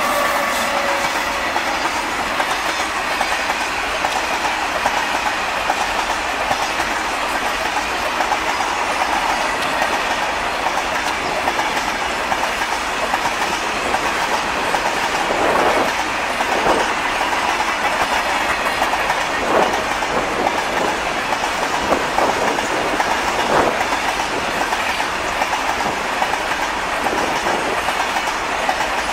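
Freight train of covered wagons hauled by an Indian Railways WAG-9 electric locomotive rolling past at speed: a steady rumble and clickety-clack of wheels over the rails. A few louder clanks come in the second half. The tail of the locomotive's horn dies away in the first second.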